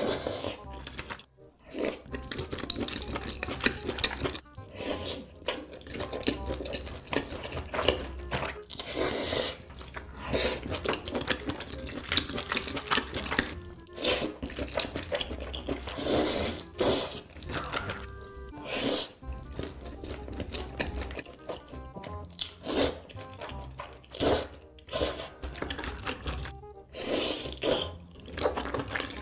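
A person slurping saucy noodles and chewing squid: a run of loud, wet slurps and mouth sounds, one every second or two.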